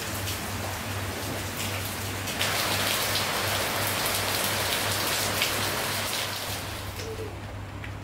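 Rain falling on wet paving and a car, with scattered drip ticks over a steady low hum; the rain grows louder a couple of seconds in and eases near the end.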